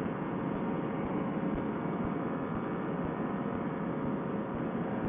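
Paramotor trike's Fresh Breeze Monster engine and propeller running steadily at high power during the takeoff roll, an even mechanical drone.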